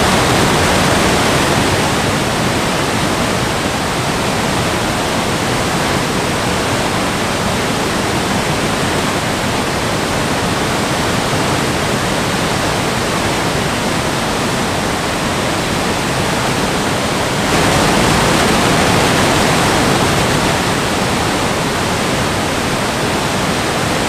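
Steady rush of a tall multi-tiered waterfall pouring down a rock face into a rocky stream bed, a dense, even noise. It grows a little louder about three-quarters of the way through, then eases back.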